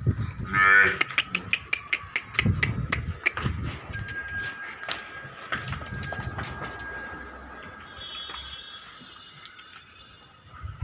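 A cow moos once, briefly, about half a second in, followed by a rapid run of sharp clicks and clinks. Thin metallic ringing tones follow in the middle, with low thuds throughout.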